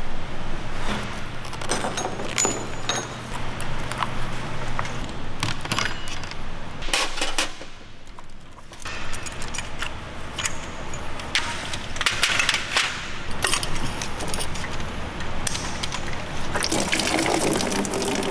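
Clicks, clinks and knocks of hand tools and parts as a BMW engine is stripped down on a stand, with a steady low hum for a few seconds near the start.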